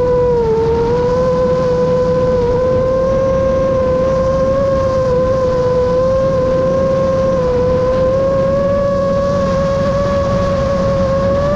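Motors of a Chimera 7.5 FPV quadcopter whining steadily in flight, the pitch dipping briefly about half a second in and then creeping slowly higher, over a constant low rushing noise.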